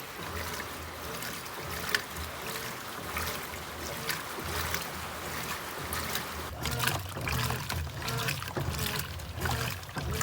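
Brastemp BWK17 top-loading washing machine running a heavy-duty jeans wash: water sloshing and splashing in the drum over a low motor hum that comes and goes in short pulses, stronger in the second half.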